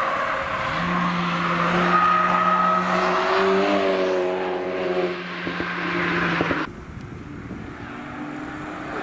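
A Volkswagen Golf Mk5 driving hard through a corner and past close by, its engine note rising and then falling as it goes past. Near the end it cuts abruptly to quieter, more distant car engines.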